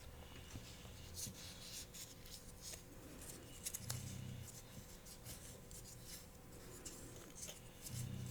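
Folded paper slips being handled and unfolded close to a microphone: soft, scattered crinkles and crackles.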